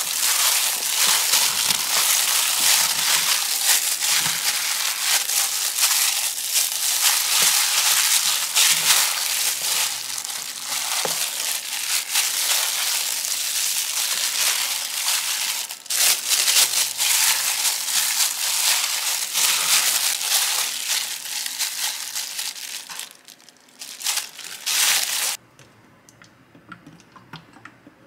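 Food frying in hot oil, a steady loud sizzle full of fine crackles. It drops away near the end, returns for a moment, then cuts off suddenly.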